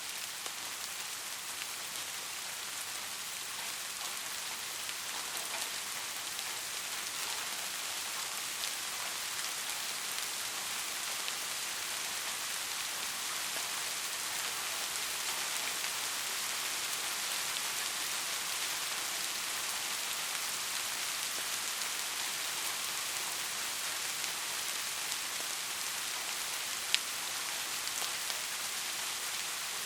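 Soft steady rain falling, an even hiss of many small drops, with one sharper drop tick near the end.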